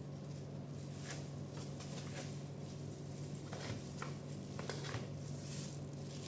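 Soft, scattered taps and rustles of light handling over a steady low hum, in a small room.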